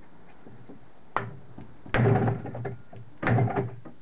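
A large hammer striking a block of wood set on the piston of a seized two-stroke British Seagull outboard, driving the piston down the bore: a lighter knock about a second in, then two heavy blows a little over a second apart.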